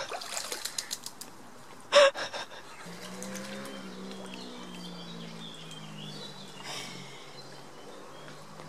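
Lake water splashing as a man scoops it up with his hands and splashes it onto himself, with one sharp, louder splash about two seconds in. After that a low steady hum runs underneath, with birds chirping faintly.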